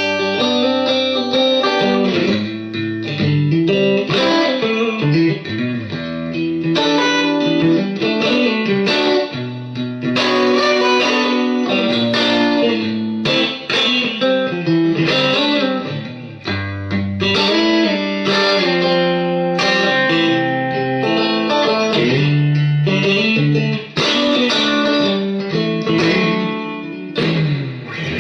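Electric guitar, a 1967 Fender Stratocaster played through an original Dallas Arbiter Fuzz Face into a Marshall JTM 45 amp, playing a continuous passage of riffs and single-note lines with the fuzz distortion on.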